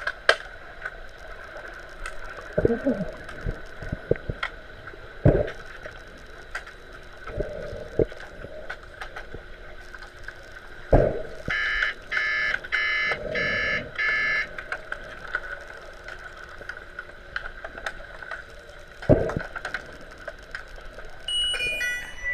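Underwater sound in a swimming pool during an underwater hockey game: scattered sharp knocks and clatter from play over a steady high hum. About eleven and a half seconds in, an underwater buzzer gives a rapid run of beeps lasting about three seconds, the referees' signal to stop play.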